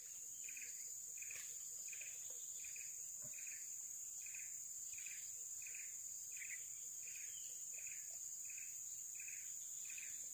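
Insects droning steadily in a high, even hiss, with a short chirping call repeating evenly about every two-thirds of a second.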